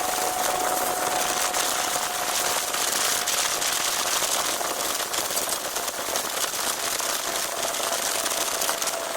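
Small boat's outboard motor running at a steady speed while under way, with a constant whine and a rushing hiss of wind and water over it.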